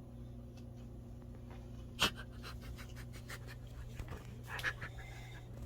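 Maltese puppy moving about: light scratching and rustling with scattered small clicks, a sharp click about two seconds in and a few louder ones near the end, over a steady low hum.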